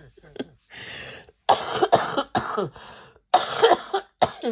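A woman coughing: a fit of several rough coughs in quick succession, starting about a second and a half in, from a lingering cold.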